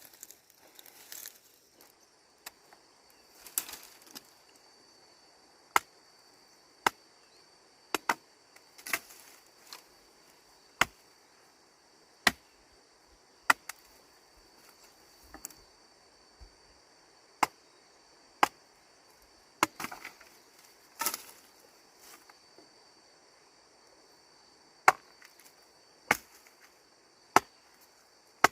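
Chopping with a blade in single sharp strikes, about one every second or two, with a few seconds' pause near the end, over a steady high trill of insects.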